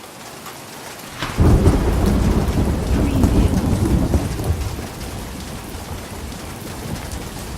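Thunderstorm: steady rain falling, then about a second in a sharp thunder crack that breaks into a long, low rolling rumble, slowly dying away under the rain.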